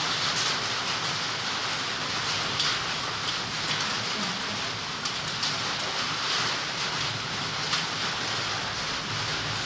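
Steady rain falling through tree foliage, a constant hiss with scattered individual drops.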